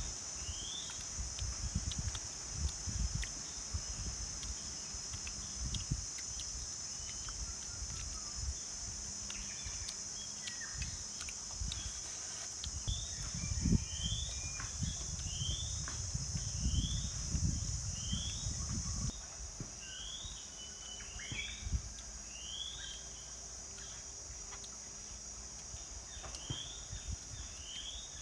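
Forest ambience: a steady high insect drone with a bird repeating a short rising call about once a second. Irregular low rumbling comes and goes underneath, strongest about halfway through.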